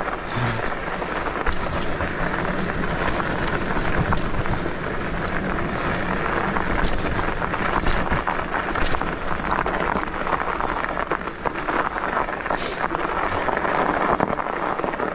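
Norco fat bike rolling fast over a snowy, rutted trail: steady tyre and trail noise with frequent small knocks and rattles as the bike bounces over the bumps.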